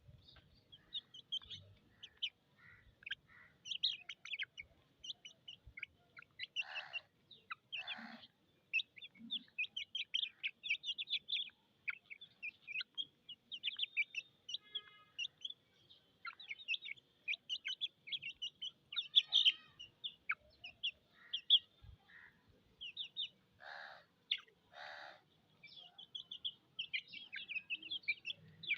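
Domestic chicken chicks peeping rapidly and continuously in short high chirps, with four longer, lower calls among them; the peeping is what the uploader puts down to thirst.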